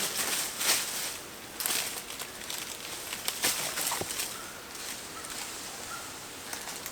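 Irregular rustling and crackling of dry leaves and brush, with a few sharp snaps of twigs. The chainsaw is not running.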